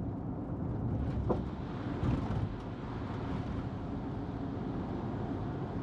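Steady road and engine rumble heard from inside a moving car. About two seconds in, the noise swells for a second or so as another vehicle, one coming up with a boat, passes.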